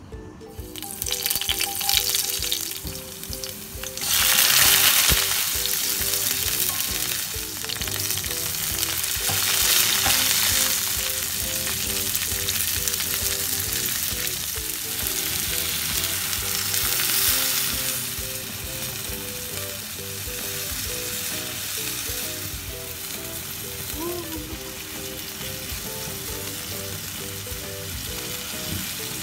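Prawns and vegetables sizzling in hot oil in a stainless steel frying pan as they are stir-fried. The sizzle jumps sharply louder about four seconds in, then settles to a steady frying hiss.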